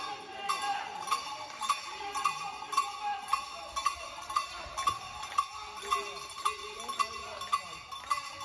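A cowbell rung in a steady beat, just under two strikes a second, each strike ringing briefly.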